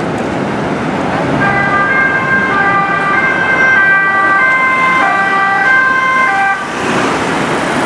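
Dutch police van's two-tone siren, alternating between a high and a low note, over traffic noise; the siren cuts off about six and a half seconds in, leaving engine and road noise.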